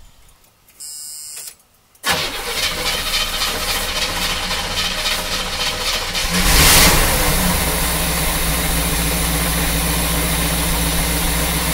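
A 1976 Corvette's original Chevy small-block V8 cranking on the starter from about two seconds in, catching about six seconds in with a loud surge, then settling into a steady fast idle with the choke on.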